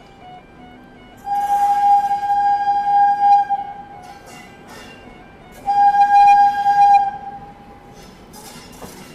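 WAP-7 electric locomotive's air horn sounding two long, shrill blasts a couple of seconds apart, the first about two seconds long and the second about a second and a half.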